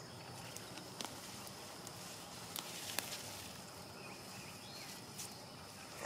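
Faint, steady, high insect trilling in a summer garden, with a few soft clicks and rustles as a potato plant is pulled up from the soil.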